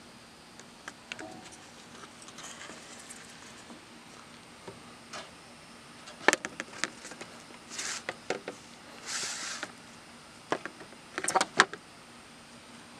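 Handling noise as a tube shroud is slid and fitted over a metal pipe barrel: scattered clicks and knocks with two short scrapes. The knocks are most frequent past the middle and again near the end.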